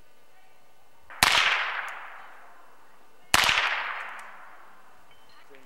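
Two rifle shots about two seconds apart, each a sharp crack that rings out and fades over about half a second, fired at cans set up as targets.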